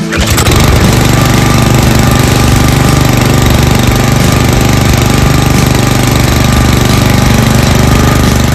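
Single-cylinder Loncin 196 cc OHV petrol engine of a LUMAG HGM-550 high-grass mulcher, recoil-started and catching at once, then running steadily with a loud, even pulse.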